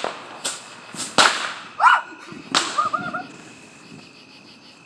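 Small fireworks going off: a quick run of about five sharp bangs in the first three seconds, then dying away.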